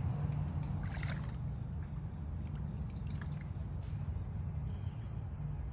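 Floodwater trickling, with a few faint drips, over a steady low rumble.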